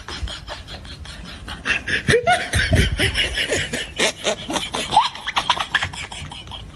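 Laughter: quick repeated bursts of a person laughing and snickering, louder from about two seconds in.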